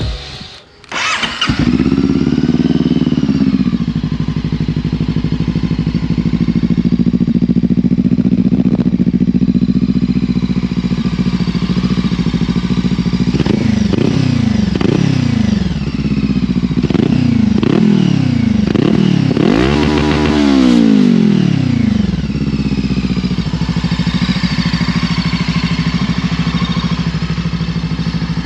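Brixton Crossfire 500's parallel-twin engine, running through an FF by Fresco exhaust with its baffle removed, starts up about a second and a half in and settles into a steady idle. Midway it is blipped about six times in quick succession, each rev rising and falling, then it returns to idle.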